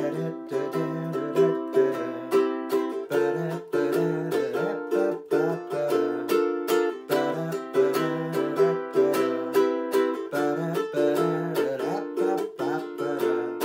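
Ukulele strummed in a syncopated, salsa-style rhythm with sharp percussive palm blocks between the strums. The strumming moves back and forth between two chords, C major 7 and B flat major 7.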